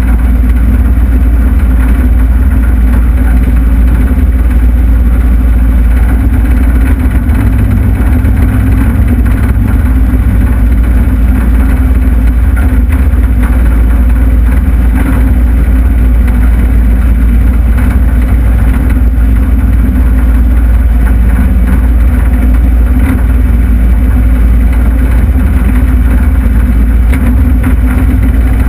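Takeuchi TL26 compact track loader's diesel engine running steadily and loud, heard from the operator's seat while the machine works dirt.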